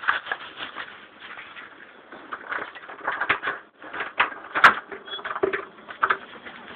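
Rustling and knocking of a camera being handled and carried, with irregular scrapes and clicks and one sharp click about four and a half seconds in.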